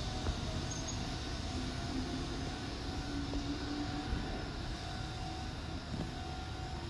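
Meitetsu 1800-series electric train pulling away and receding, a low rumble of wheels on rail with a steady motor whine, slowly fading as it goes.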